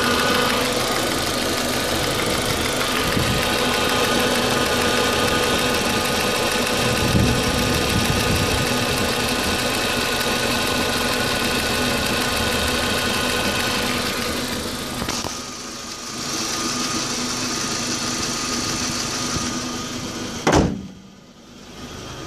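Audi A4 B6 1.8T turbocharged four-cylinder engine idling roughly. About 20 seconds in there is a single sharp thump, the loudest sound, after which it is much quieter.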